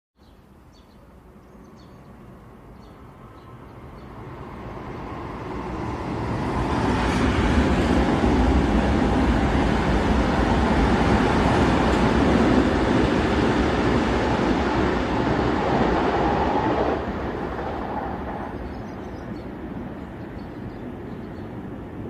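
A train passing by: a low rumble that builds from faint over about seven seconds, stays loud for about ten seconds, then drops off sharply and fades as the train goes away.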